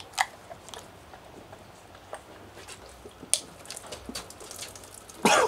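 Beer being shotgunned from cans: quiet gulping and swallowing with scattered small clicks and splashes, then a louder burst near the end.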